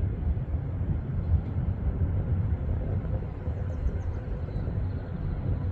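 Steady low outdoor rumble that wavers in loudness, with a faint steady hum above it.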